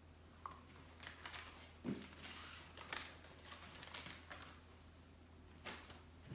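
Faint handling noises: small clicks, light knocks and paper rustles as hands move leaflets and LEGO pieces on a tabletop, with one slightly louder knock about two seconds in.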